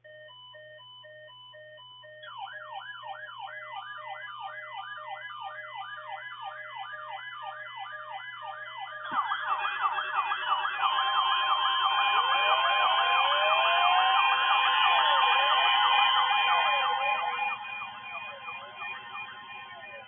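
Layered electronic alert tones. Steady beeping tones at several pitches give way after about two seconds to a fast rising-and-falling siren yelp. From about nine seconds many more siren sweeps and falling glides pile on, over a steady weather-radio alarm tone, and this is loudest near the middle and fades toward the end.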